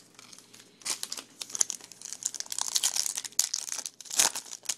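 Foil wrapper of a Topps Finest baseball card pack crinkling and tearing as it is ripped open by hand. It is a quick run of sharp crackles starting about a second in, loudest near the end.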